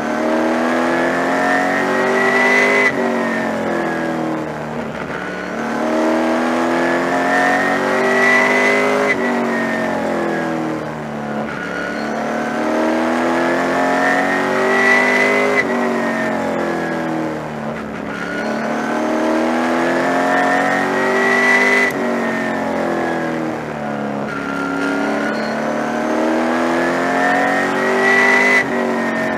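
Super Late Model race car's V8 engine heard from inside the car at racing speed on a short oval, revving up in a long rising climb and then dropping sharply as the driver lifts for the turn, over and over about every six seconds.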